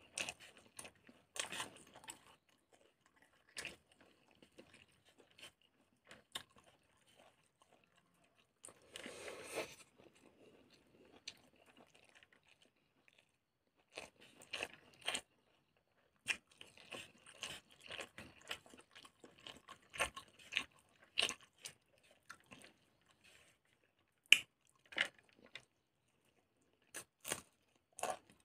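Close-up mouth sounds of chewing rice and pork intestine, with irregular crunches and sharp wet clicks from biting. A few short louder rustles come from fingers mixing rice on the plate.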